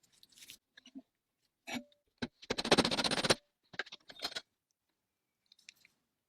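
Hand work on rifle metal parts: scattered clicks and knocks, with a fast run of clicks lasting just under a second about two and a half seconds in.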